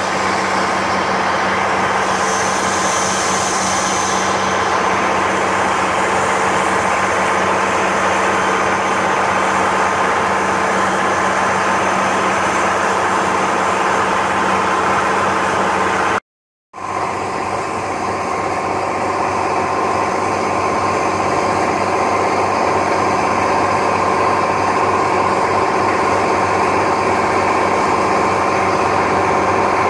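Motorboat engine running steadily at cruising speed, with a brief break about halfway through before it carries on.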